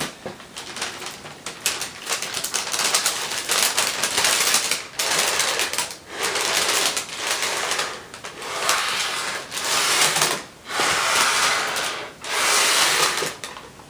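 Breathing hard in and out of a paper bag, the bag rustling and crinkling with each breath, in repeated bursts about every two seconds.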